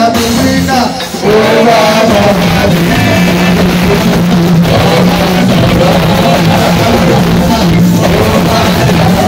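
Loud amplified live worship music: a man singing into a microphone over a band with guitar and a steady bass line.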